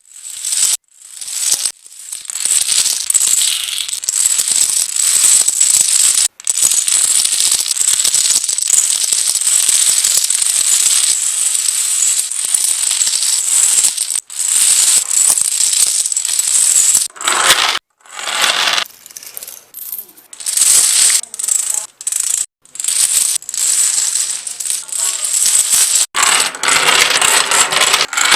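Dominoes toppling in long chain reactions: a rapid, continuous clatter of tiles knocking into one another, stopping abruptly several times between runs.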